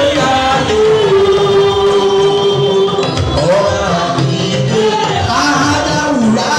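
Church worship music: singing with long held notes over a steady drum beat.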